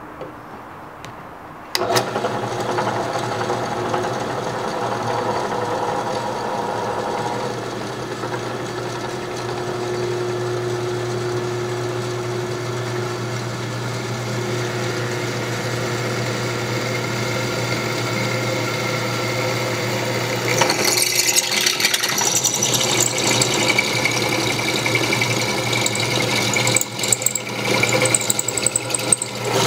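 Benchtop drill press motor switching on about two seconds in and running steadily as the twist bit feeds down into square metal tubing. In the last third a louder, higher-pitched cutting noise joins the motor hum as the bit bites into the metal.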